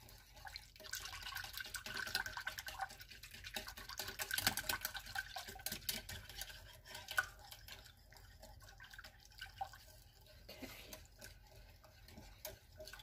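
Wire whisk stirring a thin lemon pie filling in a glass bowl over a pot of water, its wires clicking and scraping against the glass. The whisking is busiest in the first half and lighter and sparser after about eight seconds.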